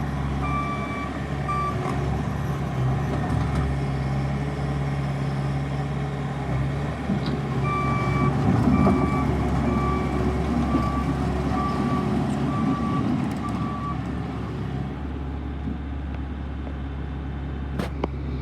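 Bobcat T550 loader's diesel engine running steadily while its backup alarm beeps at an even pace, about one beep every three-quarters of a second. The beeping comes in two spells, briefly at the start and again from about eight to fourteen seconds in, when the machine reverses and the engine sounds a little louder.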